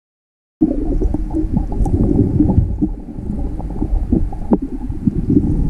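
Muffled underwater noise picked up by a submerged camera: a low rumble with scattered clicks and pops, cutting in abruptly about half a second in.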